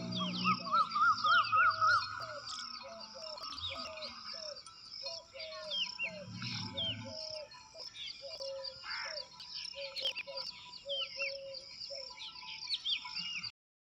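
Several birds chirping and calling together in a morning chorus, one repeating a short falling note about twice a second among many higher chirps. The sound cuts off suddenly near the end.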